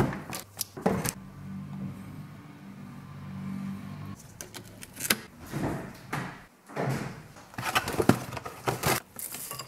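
A fridge door clicks open, then a low steady hum runs for about three seconds. From about halfway in, a yogurt tub, a spoon and a ceramic bowl knock and scrape in a string of short clattering sounds as yogurt is poured and spooned into the bowl.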